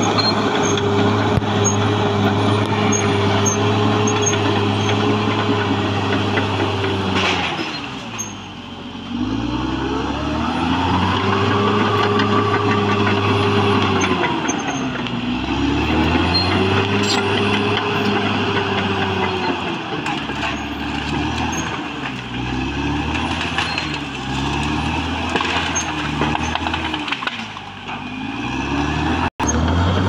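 Caterpillar D6R XL crawler bulldozer's diesel engine running hard as the dozer pushes earth and roots. Its engine note sags and picks back up several times, most deeply about eight seconds in.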